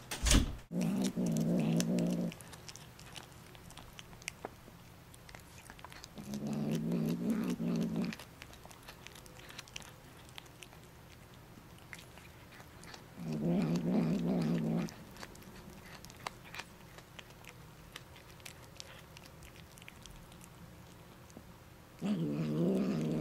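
Savannah cat eating whole prey: small crunching and chewing clicks throughout, broken by four long, low growls of about two seconds each, several seconds apart. A sharp knock comes just at the start.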